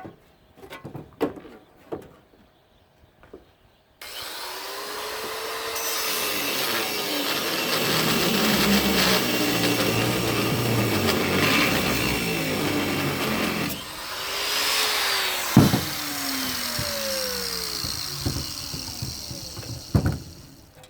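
Scattered knocks, then about four seconds in an angle grinder with a worn-down cut-off wheel starts up and cuts into the metal of an air conditioning unit. It eases off briefly near the middle, picks up again, and winds down shortly before the end.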